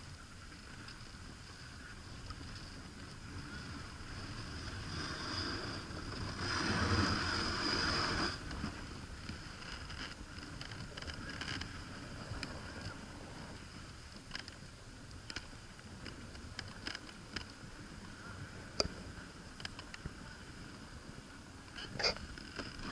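Dog sled moving over packed snow: a steady hiss of the runners sliding. The hiss swells for a couple of seconds about a third of the way in, and light clicks and knocks are scattered through the second half.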